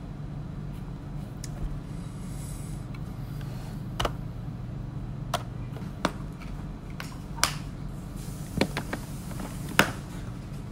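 Scattered sharp clicks and light knocks, about six in the second half, from a plastic glasses case being opened and a pair of glasses being handled at a desk, over a steady low room hum.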